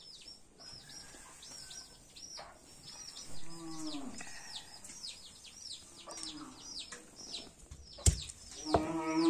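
A bird chirping over and over, short falling notes a few times a second. Near the end, a few sharp knocks of a stone pounding ginger on a flat stone grinding slab.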